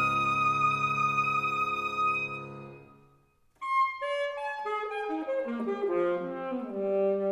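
Alto saxophone and piano playing classical chamber music: a held chord fades away into a brief silence about three seconds in, then the saxophone plays a quick run of notes falling step by step and settles on a held low note.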